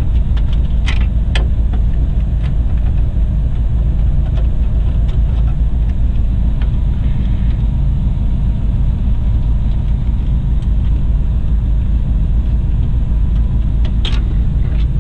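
A steady low rumble throughout, with a few sharp clicks from a screwdriver working screws out of a plastic dash bezel: two about a second in and one near the end.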